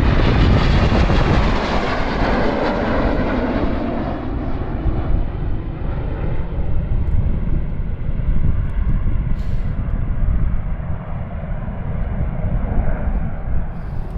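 Red Arrows BAE Hawk T1 jets flying past, their jet noise loudest at the start and fading over the first few seconds to a distant rumble.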